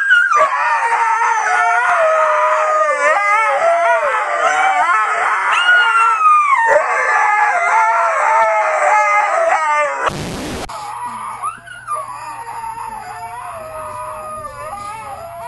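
Siberian husky howling in long, wavering calls that glide up and down in pitch. About ten seconds in, a short burst of noise cuts it off, and fainter howling goes on over a low steady hum.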